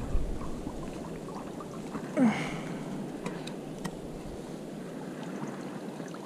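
Steady outdoor noise of water and wind at a lake, with a short rising tone about two seconds in and a few faint clicks.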